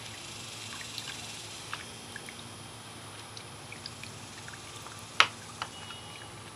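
A hand stirs frothy compost tea in a plastic bucket: faint sloshing and dripping with small ticks, and one sharp click about five seconds in.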